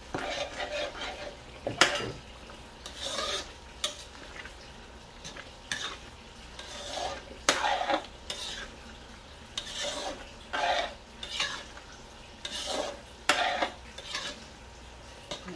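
A ladle stirring thick tomato spaghetti sauce in a metal wok (kawali), scraping through the sauce and against the pan in irregular strokes. Twice it strikes the pan with a sharp clink.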